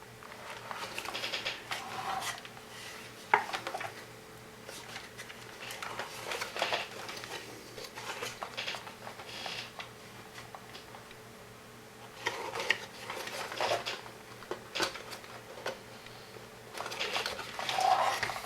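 Hands handling small hard parts while working a ribbon cable into place on a robot chassis: scattered clicks, taps and light rattles, with one sharper click about three seconds in.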